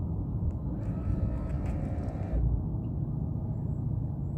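Steady low rumble of a kayak underway on its Minn Kota electric trolling motor, with a brief rush of higher hissing noise about a second in.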